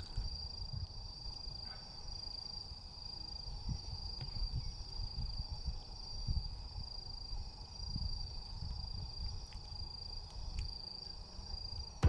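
Wood fire burning on a mesh fire stand: a low, fluttering rumble of flames with a few faint crackles. Over it runs a steady, high-pitched chirring of autumn insects.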